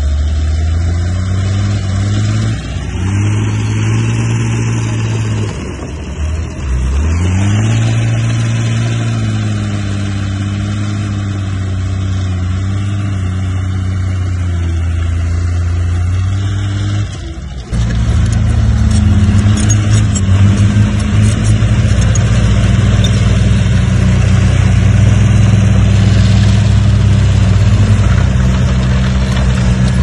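Heavy bulldozer diesel engine working under load, its note dipping and picking up again twice in the first several seconds, then running steadily. About two-thirds of the way through the sound changes abruptly to a louder, steadier engine.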